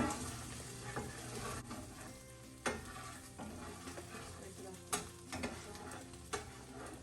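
Snap beans with garlic and ginger sizzling in a cast iron skillet while a utensil stirs and scrapes them, with several sharp knocks of the utensil against the pan.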